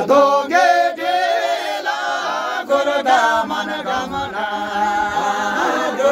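A group of women singing a traditional song together without instruments, several voices continuing steadily throughout.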